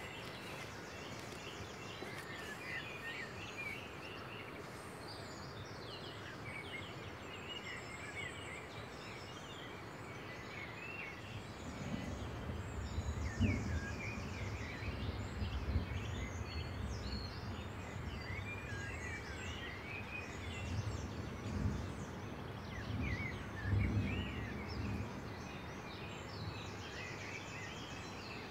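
Several small birds chirping and singing over outdoor background noise. About twelve seconds in, a low rumble comes in and swells a few times.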